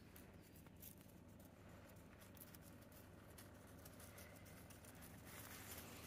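Near silence: a faint steady hiss with a few faint ticks.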